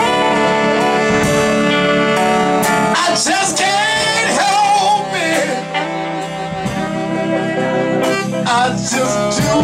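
Live band music led by two saxophones: a long held chord for about three seconds, then bending, wavering sax lines over the band.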